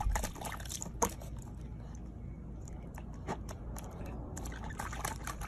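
Water splashing and sloshing in a small plastic tub as a corgi puppy paws at it: irregular sharp splashes over a steady low rumble.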